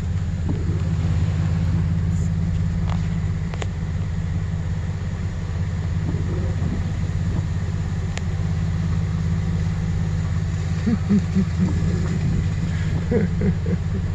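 A vehicle engine running steadily with a low hum, and faint voices about three-quarters of the way through.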